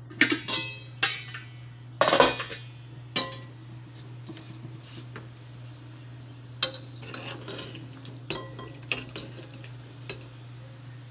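A glass pot lid is handled with several loud clatters in the first few seconds, then a metal ladle stirs and clinks now and then against the stainless steel pot of simmering adobo, over a steady low hum.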